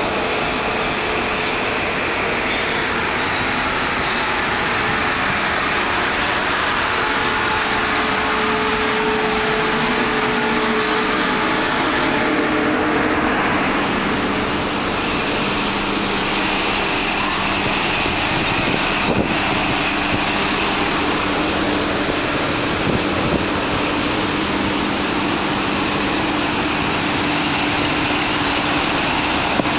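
Steady noise on a cruise ship's open top deck: a constant rushing roar with several steady machinery hums running through it.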